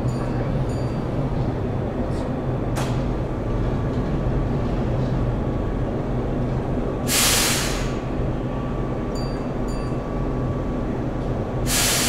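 Keihan electric train at an underground platform: a steady low rumble and hum, broken by two short, loud hisses of air, one a little past halfway and one at the end.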